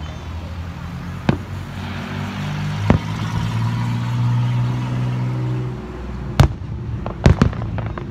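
Aerial firework shells going off in sharp bangs: one about a second in, another at about three seconds, then a loud one and a close pair near the end. A low, steady hum runs underneath.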